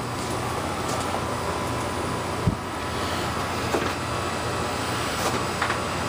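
Steady drone of running machinery, an electrical hum with a thin steady whine over it, with one low thump about two and a half seconds in.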